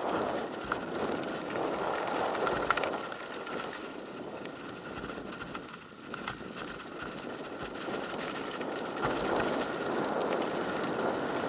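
Off-road riding noise: tyres rolling over a loose gravel dirt track, with rattles and small knocks from the vehicle carrying the camera. It eases off briefly about six seconds in.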